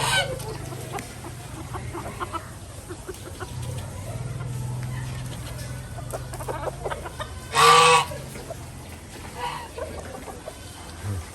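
Farm fowl clucking in scattered short calls, with one loud, brief animal call about eight seconds in, over a steady low hum.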